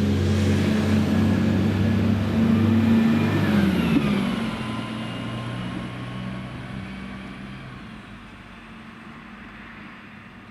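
Diesel train's engine running loud as it passes, its pitch dropping about four seconds in, then fading steadily away.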